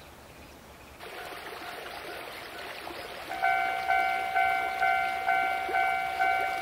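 A Japanese railway level-crossing alarm starts ringing about halfway through, a clanging two-tone bell repeating about twice a second over a low background hiss; it signals that a train is approaching.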